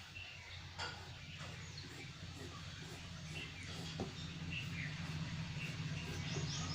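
Background birds chirping now and then over a low steady hum that slowly grows louder, with a couple of soft clicks; a rapid high insect trill, like a cricket, starts near the end.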